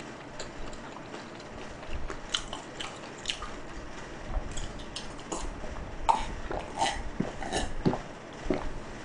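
A man drinking from a metal can, with gulps, swallows and small wet mouth clicks scattered through.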